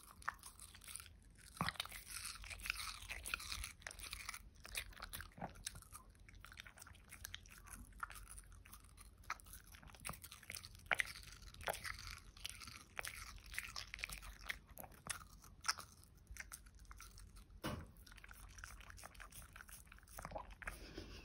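A Shih Tzu crunching and chewing thin slices of watermelon with the rind on, a quick irregular run of crisp, wet crunches and bites.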